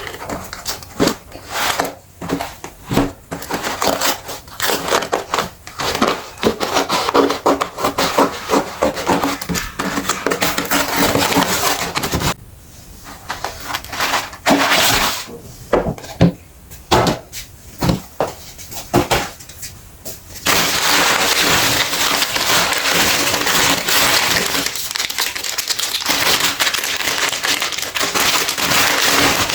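Meat grinder crushing something hard and brittle, a dense run of irregular cracks and snaps, giving way about two-thirds of the way in to a steady, even grinding noise.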